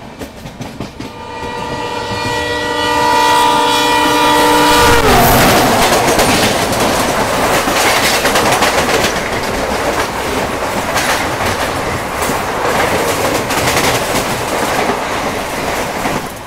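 Bikaner Intercity Express passing close on the next track. Its locomotive horn sounds a steady chord for about four seconds and drops in pitch as the engine goes by. Then its coaches rush past with loud, rapid wheel clatter over the rail joints.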